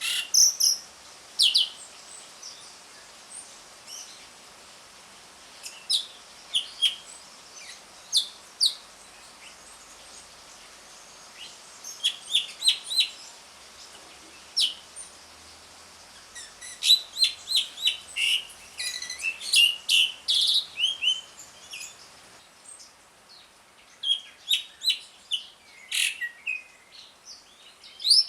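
Javan pied starling (jalak suren) giving short, sharp, high-pitched chattering calls in quick clusters, separated by pauses of a few seconds.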